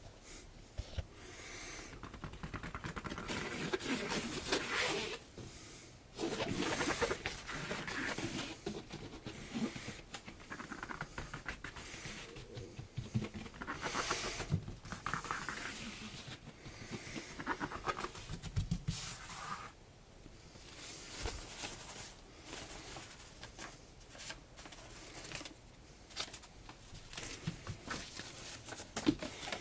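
A cat at play: irregular rustling, scratching and pattering noises that come and go every second or two, with a few sharp clicks near the end.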